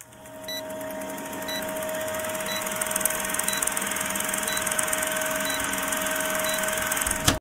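Old film-countdown sound effect: a film projector running with a steady whirring clatter and hum, and a short high beep once each second, seven beeps in all. It fades up at the start and cuts off suddenly just before the end.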